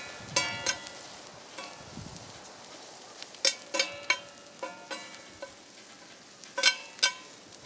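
A metal utensil clinking against a metal pan or pot while stirring, about a dozen ringing knocks in small irregular clusters. Food frying and sizzling steadily underneath.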